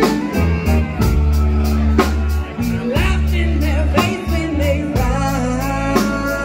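Live band music: a woman singing the lead over electric bass and a drum kit keeping a steady beat.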